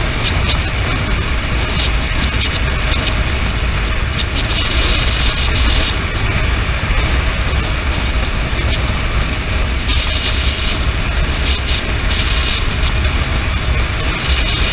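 Honda CB motorcycle cruising at steady highway speed: a constant low rumble of wind buffeting the microphone over the engine and tyre noise, with no gear changes or revving.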